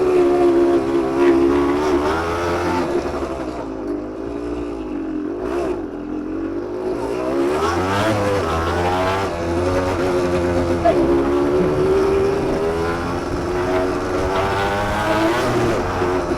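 Suzuki TSR 125's single-cylinder two-stroke engine running and being revved. The pitch rises and falls several times, with a lower, quieter stretch about a third of the way in.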